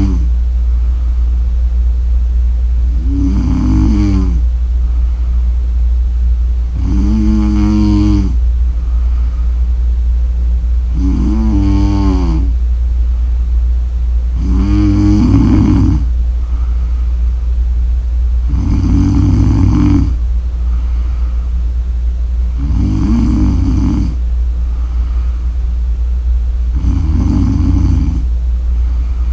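A woman snoring: a pitched, droning snore roughly every four seconds, about eight in all, over a steady low hum.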